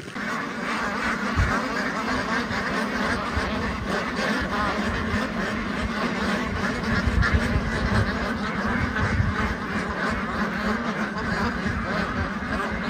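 A large flock of domestic ducks quacking all at once: many overlapping quacks merge into a steady, unbroken din.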